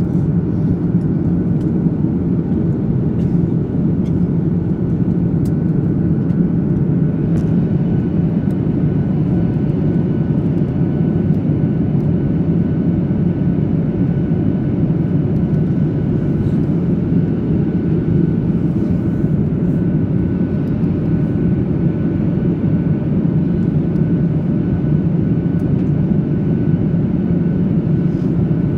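Steady cabin drone of a Boeing 737-800 in descent: CFM56 engine and airflow noise, even and unchanging, with a faint steady high whine.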